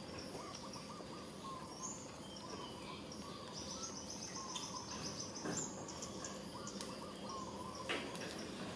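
Outdoor birds calling: short chirps repeated again and again, with a high rapid trill about halfway through, over a steady background hiss. A sharp click near the end.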